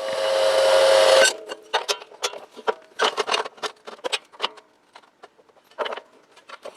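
Bandsaw cutting 3 mm steel plate, a steady whine with hiss that stops abruptly a little over a second in. Then a scattering of short, light clicks and knocks.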